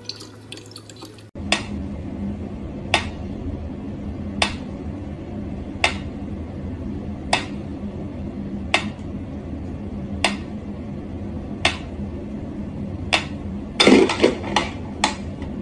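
Mechanical pendulum metronome ticking slowly, one sharp tick about every second and a half. Near the end there is a short burst of louder knocks and rattling.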